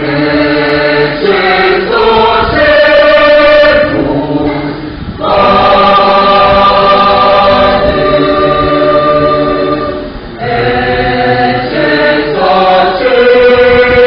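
A church choir singing in harmony, coming in at the very start, in three phrases with short breaks between them; the middle phrase is a long held chord.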